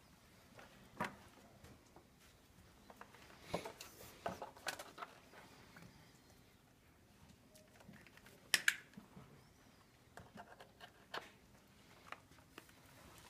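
Faint scattered clicks and knocks of things being handled, a dozen or so at uneven intervals over quiet room tone. The sharpest click comes about two-thirds of the way through.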